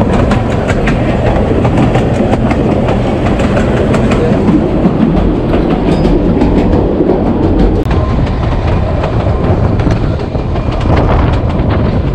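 Narrow-gauge passenger train running, heard from an open carriage door: a steady loud rumble of wheels on the rails, dotted with quick clicks and clacks over the track joints.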